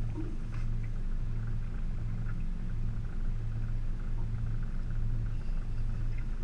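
Outboard motor idling: a steady low hum that swells and fades in a slow, even beat, about one and a half times a second.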